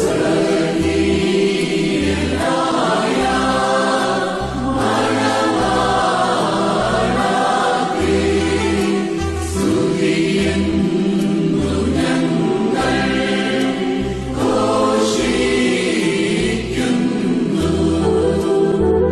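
Malayalam Christian devotional hymn: several voices singing together over instrumental backing, with a bass line that moves in short held notes.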